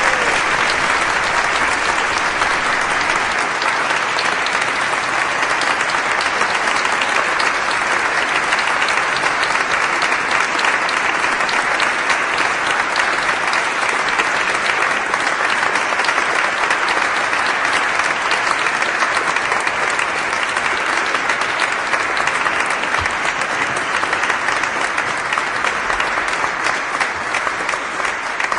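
A large crowd applauding steadily, many hands clapping at once, easing off slightly near the end.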